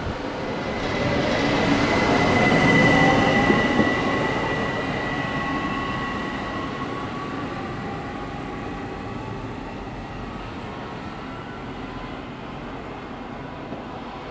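ÖBB class 4024 Talent electric multiple unit pulling away from the platform: running noise with an electric motor whine whose tones rise in pitch as it gathers speed. It is loudest a couple of seconds in, then fades steadily as the train draws away.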